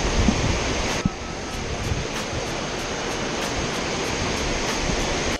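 Rushing water of a small river cascade pouring over rock ledges, a steady full roar.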